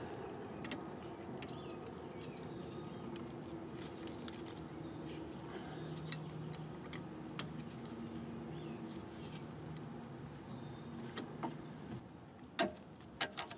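Scattered light metal clicks and clinks of a socket wrench on rear brake caliper bolts, with a few sharper clinks near the end, over a steady low background hum and faint bird chirps.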